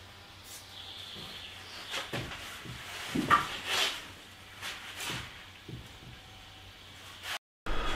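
Intermittent scraping, rustling and light knocks of hand work at a plywood kayak's deck, loudest a few seconds in, breaking off abruptly near the end.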